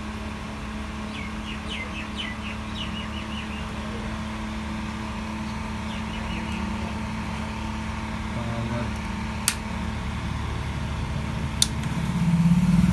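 Home inverter's steady low hum, with two sharp clicks in the second half and the hum growing louder near the end as the unit comes on with mains power. A few quick bird chirps come a second or two in.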